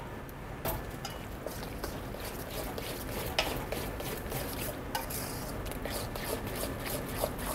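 Metal spoon stirring beaten eggs into thick hush puppy batter in a stainless steel mixing bowl, with repeated scraping and clicking of the spoon against the bowl.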